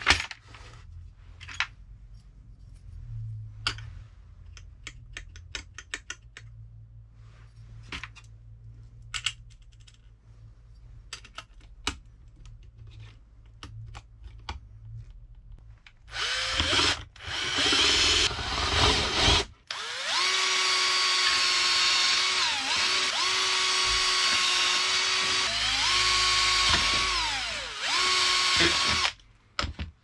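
Small metal parts clicking and clinking in a plastic tray, then a Bosch 12 V cordless drill/driver running. It whirs in a few short bursts, then runs for about nine seconds with its pitch dipping and rising again three times, driving screws out of a vacuum cleaner motor's top bracket, and stops near the end.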